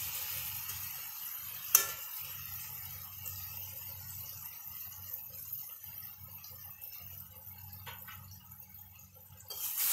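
Potato and cauliflower pieces sizzling faintly in oil and masala in a metal kadai, the sizzle slowly dying down. There is a sharp clink of the metal spatula against the pan about two seconds in, and stirring starts up again just before the end.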